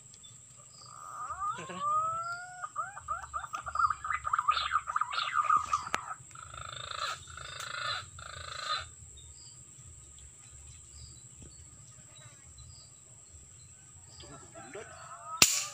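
Birds calling: rising whistled glides that run into a fast run of repeated notes, then a couple of rougher calls. Near the end comes one sharp crack of a rifle shot, and rising bird calls start again right after it.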